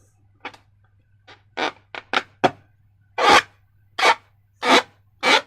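Slime being squeezed and worked by hand: a run of about ten short, irregular squishy crackles.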